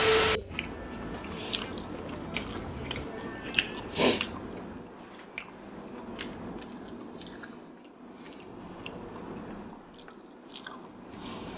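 Close-miked chewing, mouth clicks and lip smacks of someone eating rice with fried pekasam by hand, with a loud bite right at the start and another about four seconds in.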